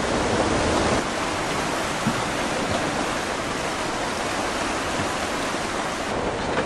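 Tsunami floodwater rushing and churning through a flooded valley: a steady, even noise of fast-moving water, dropping slightly in level about a second in.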